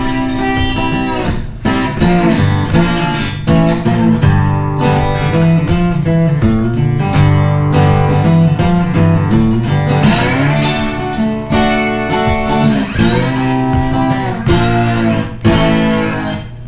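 Background music: an acoustic guitar piece with plucked and strummed notes.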